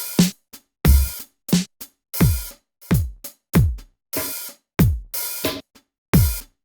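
Korg Triton Extreme VST drum machine sounds: quick, dry drum hits, then from about two seconds in a steady run of deep kick-drum hits, each boom falling in pitch under a noisy top, about one and a half per second.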